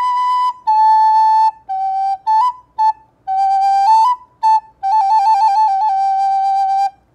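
Soprano recorder playing a short melody of clear, pure notes on a few neighbouring pitches, some held and some short, with a quick back-and-forth between two notes near the end before a long held low note. Blown gently, with a clean, squeak-free tone.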